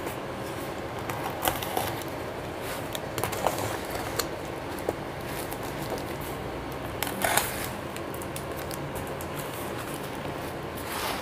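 Utility knife cutting and scraping at packing tape on a cardboard parcel, with the crackle and taps of the box being handled. The short crackles and clicks are scattered throughout, a louder cluster comes about seven seconds in, and a steady hiss runs underneath.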